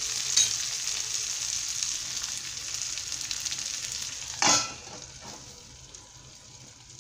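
Onions, green chillies, curry leaves and mint sizzling in hot oil in a steel pan. About four and a half seconds in, a steel lid is set on the pan with a clank, and the sizzle becomes much quieter and muffled under it.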